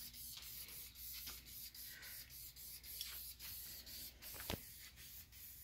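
Aerosol can of fabric and vinyl spray dye hissing as it is sprayed over a car interior part, with one sharp tick about four and a half seconds in.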